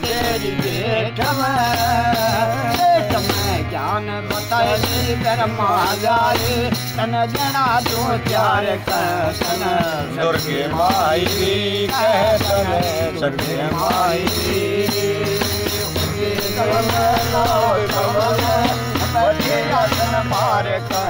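Male voice singing a Hindi devotional song to the goddess (mata ki bhent) with a wavering, ornamented melody, accompanied by a harmonium and a hand-struck frame drum whose rim jingles rattle with each stroke.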